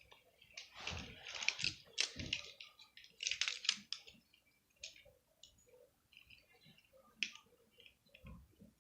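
Plastic toy figures being handled and set down: a flurry of light clicks and rattles for the first few seconds, then scattered single clicks.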